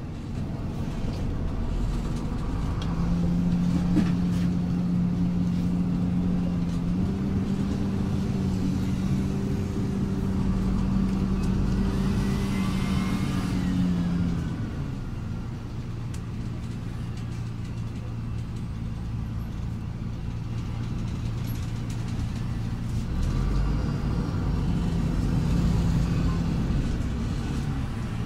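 City bus engine and drivetrain heard from inside the cabin while the bus drives, a steady low hum with a tone that steps up in pitch about a third of the way in as the bus gathers speed, drops away about halfway through, and comes back near the end.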